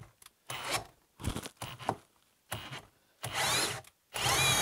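Kobalt XTR brushless cordless hammer drill boring into wood with a 3/4-inch bit, starting and stopping in short bursts before spinning up and cutting steadily near the end. The drill keeps cutting out under the heavy boring load.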